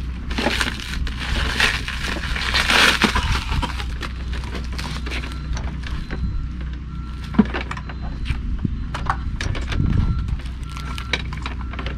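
Packaging being pulled and handled while a lawn mower is unboxed: crinkling, crackling rustle, loudest in the first few seconds, with scattered sharp clicks and knocks. A steady low hum runs underneath.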